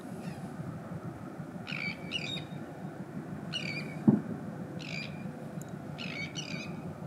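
Birds calling in short clusters, a call or a pair of calls every second or so, over a steady low background rumble. A single short low thump comes about four seconds in.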